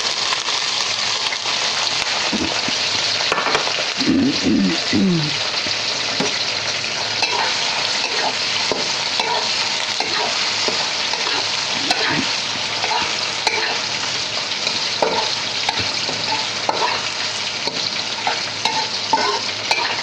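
Sausage and onion frying in hot oil in a pan, sizzling steadily while being stirred, with small clicks of the utensil against the pan.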